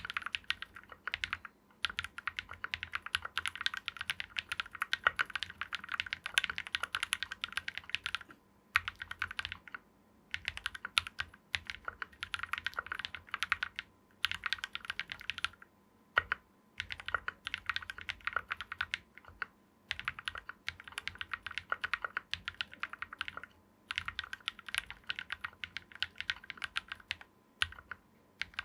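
Continuous typing on a 60% mechanical keyboard with lubed KTT Kang White 60g linear switches, a brass plate and PBT keycaps. Dense runs of keystrokes are broken every few seconds by short pauses.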